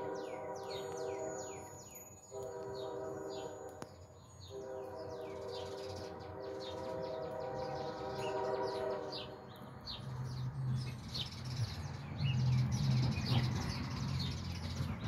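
Locomotive air horn blowing in three long blasts, the last about five seconds, then the low rumble of the locomotives' diesel engines growing louder as the train approaches. Small songbirds chirp throughout.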